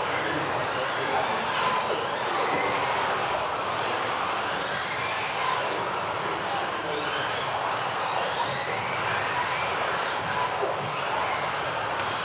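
Several electric 1:10 off-road RC cars racing together, their brushless motors whining up and down in pitch as they accelerate and brake, over a steady noise of tyres on the track surface.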